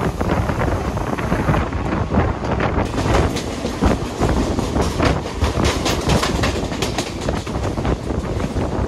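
Mumbai suburban electric local train running at speed, its wheels clattering over the rail joints in a dense run of clicks and rattles over a steady rumble.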